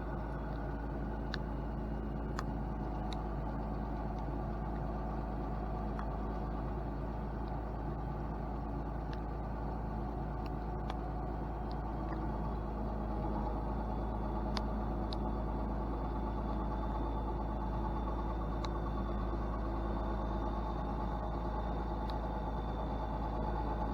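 Diesel engine of a piece of logging equipment running steadily, with a faint high whine coming in about halfway through and a few scattered clicks.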